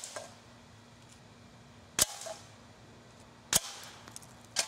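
Three air rifle shots, each a sharp crack: about two seconds in, about three and a half seconds in, and near the end. The pellets strike a tin can, and a short ring follows the first shot.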